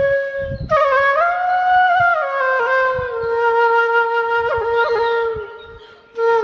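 A wind instrument playing a slow melody of long held notes with slides between them, breaking briefly near the start and fading away near the end.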